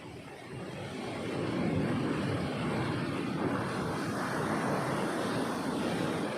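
A sea wave breaking on the beach: a rushing swell of surf that builds about a second in, holds, and eases off near the end.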